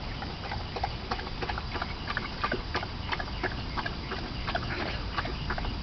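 Dog lapping water, a fast, uneven run of wet clicks, over a steady low background noise.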